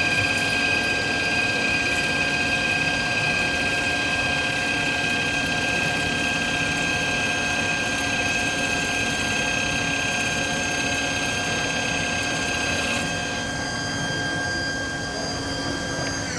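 Lathe running steadily at high speed, a whine of several fixed tones over a hiss. One high tone drops out about 13 seconds in, and at the very end the whine starts falling in pitch as the spindle begins to spin down.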